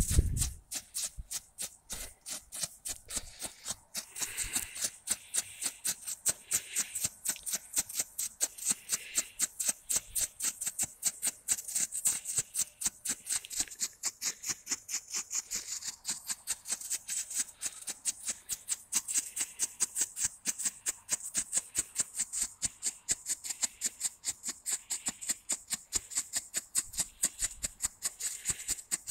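Pyrotechnic strobe firework flashing, each flash a sharp pop or crackle, repeating at an even rate of a few a second.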